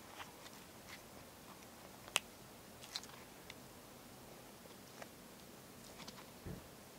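Faint crackling and clicking as a flexible red NinjaFlex TPE 3D-printed BMX grip is squeezed and bent in the hand, with one sharp click about two seconds in and a soft thump near the end.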